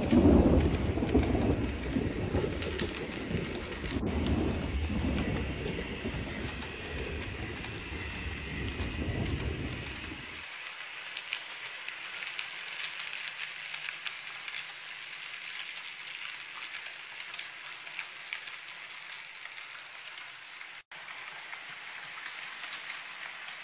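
HO scale model train rolling along the track: a rumble of motor and wheels for about the first ten seconds, which drops away abruptly, leaving a thinner crackling hiss of small metal wheels on the rails.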